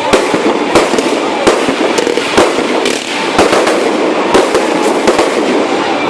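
Fireworks display going off: a fast, irregular run of sharp bangs, about two a second, over a dense crackle.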